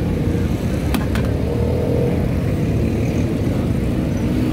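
Steady low rumble of road traffic, with two sharp clicks close together about a second in.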